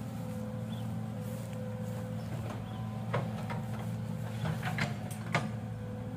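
Excavator's diesel engine running steadily, with several sharp metallic clanks and creaks in the second half.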